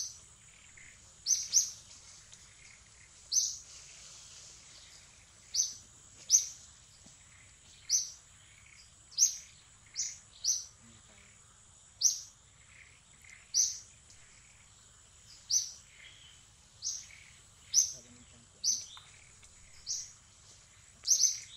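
A bird chirping over and over, a short, sharp high call about once a second, over a steady high insect drone.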